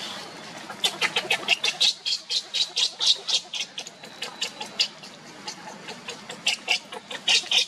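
A baby macaque crying in a rapid run of short, high-pitched calls, about four or five a second, breaking off about five seconds in and starting again near the end.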